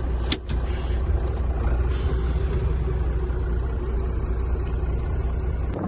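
Truck's diesel engine idling with a steady low rumble, with a short knock about a third of a second in. The rumble cuts off abruptly just before the end.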